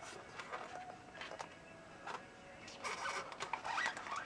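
Polystyrene foam packing tray squeaking and rubbing under the hands, with light clicks and rustling, getting busier in the last second or so.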